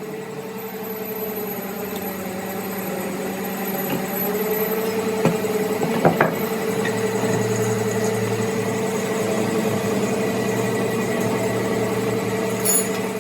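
A motor-driven machine spinning up over the first few seconds, then running with a steady hum. A few sharp clicks or knocks come about five to six seconds in.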